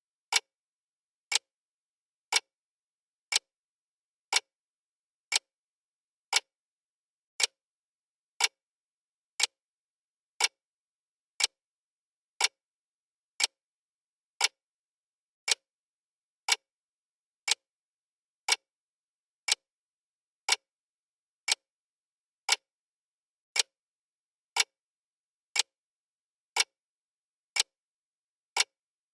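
Clock ticking steadily, one sharp tick each second with silence between.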